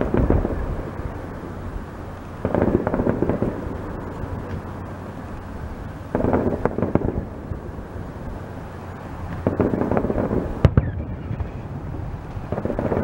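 Aerial fireworks shells bursting, a cluster of crackling bangs every three to four seconds, with one sharper crack near the end.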